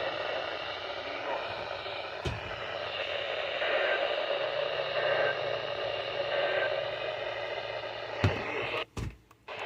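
Weather radio playing a weak, static-filled NOAA Weather Radio signal as steady hiss. Three faint short beeps come through it about a second apart in the middle, there are a couple of clicks, and the audio cuts out briefly near the end.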